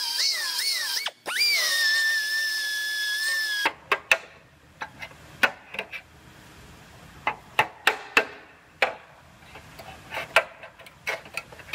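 Pneumatic belt sander whining as it grinds at a car body panel seam, the pitch wavering and cutting out briefly about a second in, then stopping after about three and a half seconds. After that, scattered sharp metallic taps and clicks as a hand tool works the sheet-metal seam.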